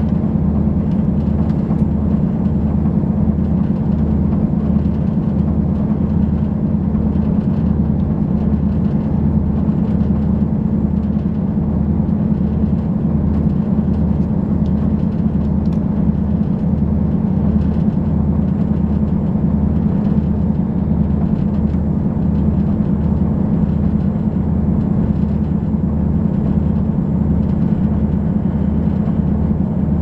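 Running noise inside a JR Hokkaido KiHa 183 series diesel railcar on the move: a steady engine and track drone with a low throb that beats evenly about one and a half times a second.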